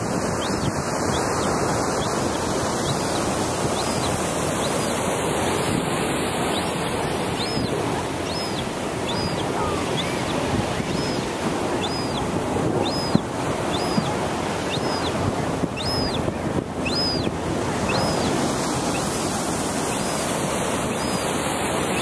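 Western gull chick begging for food with a long series of high, thin peeps, about one a second, over a steady rush of surf and wind on the microphone.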